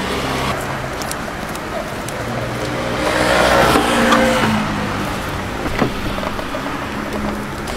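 Street traffic, with a motor vehicle's engine swelling as it passes and fading again about three to four and a half seconds in. A single sharp click a little before six seconds in.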